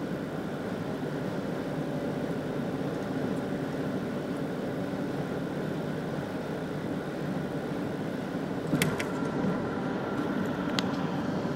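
2004 Jeep Grand Cherokee's engine running steadily at around 2,000 rpm, heard from inside the cabin, on a Jeep whose owner reports rpm fluctuations. Two short clicks come near the end.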